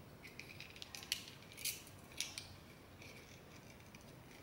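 A few faint clicks and light plastic handling sounds as a replacement red plastic trigger is fitted onto a Dyson V11 cordless vacuum's trigger switch assembly.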